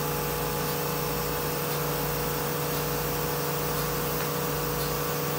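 2008 Anderson CNC router's spindle running steadily at 9,000 RPM: a constant hum and whine over a steady hiss.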